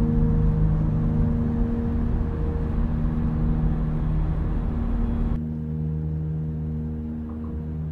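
Cabin noise of a car driving in the rain, a steady hiss over a steady low drone. The hiss drops away suddenly about five seconds in, leaving the drone.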